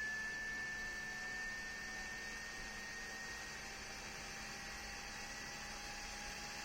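WISFISSH clip-on handheld fan running, its small motor giving a thin whine that creeps slowly up in pitch over a faint airflow hiss.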